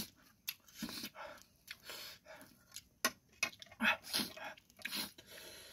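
A person eating very spicy instant noodles: chewing, with a string of short breathy gasps and brief vocal noises from the heat of the chilli.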